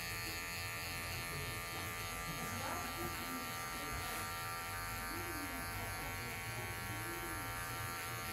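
Cordless electric hair clipper running with a steady buzz as it is drawn up through short hair on the side of the head, cutting a fade.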